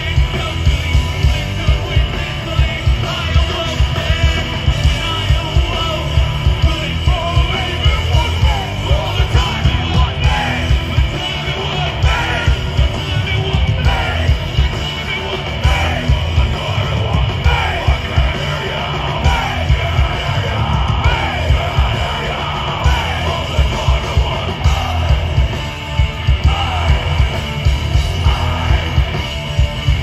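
Live hard rock band playing loud: distorted electric guitar, drums keeping a steady beat, and shouted vocals, heard from within the crowd.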